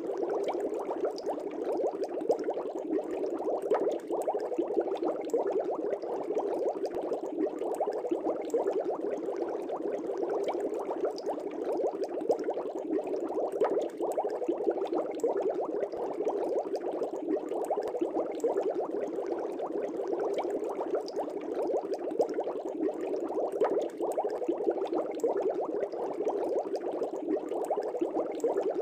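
Aquarium air bubbles rising and bursting at the water surface: a steady dense bubbling and popping.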